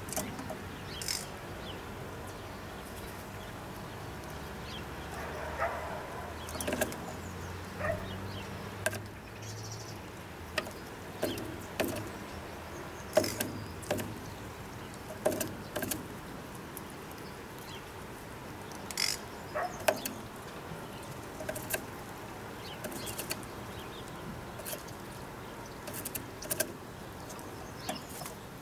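Eurasian magpie pecking at a wooden bird feeder: irregular sharp taps and knocks, about one every second or two.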